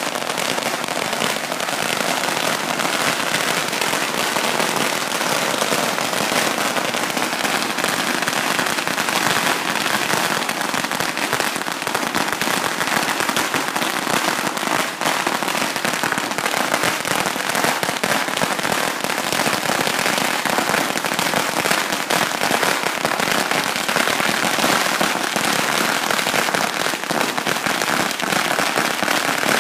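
A huge roll of firecrackers burning through on the ground, a dense continuous string of rapid bangs that keeps an even level.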